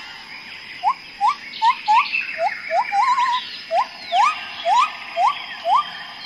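A quick series of short rising whistled calls, about two or three a second, one of them running on into a brief wavering trill, over fainter high chirps and a steady high tone.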